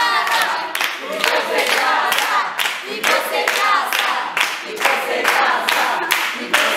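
A group of girls singing together with rhythmic hand clapping, the claps coming about twice a second.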